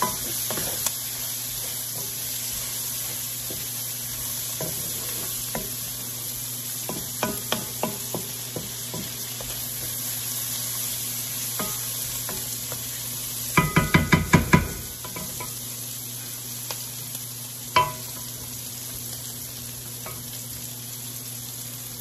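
Bacon and onions sizzling in a large cast iron pan as a wooden spoon stirs and scrapes through them. A little past halfway comes a quick run of about six knocks of the spoon on the pan, then a single knock a few seconds later.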